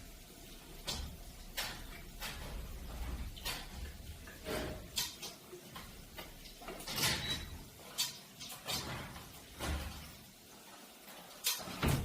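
Irregular clicks and knocks of hard parts being handled, about a dozen spread out with gaps between them.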